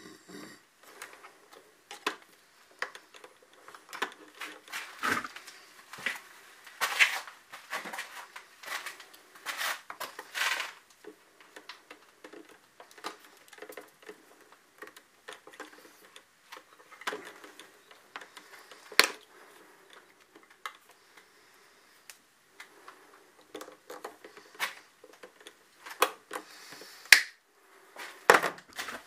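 Hands and pliers working the wiring of an electrical panel: irregular clicks, taps and rustling scrapes, with a few sharper clicks near the end.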